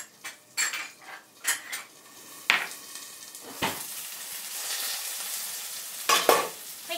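Knocks and clinks of bowls and utensils. From about four seconds in comes a steady sizzle as shungiku (garland chrysanthemum) chijimi batter hits the hot frying pan, with a clatter of pan and utensil near the end.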